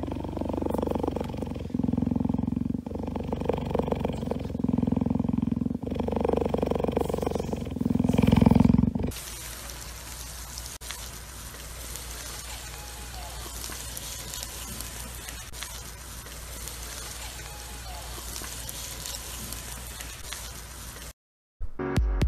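Cheetah purring loudly right against the microphone, a rough rhythmic purr swelling and easing with each breath for about nine seconds. It then cuts off to a faint steady hiss, and electronic music with a beat starts just before the end.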